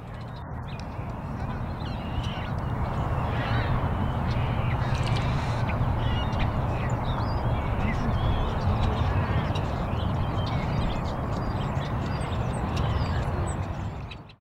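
Many birds calling over a steady rumbling background, like a busy animal ambience. It swells in over the first seconds and cuts off abruptly just before the end.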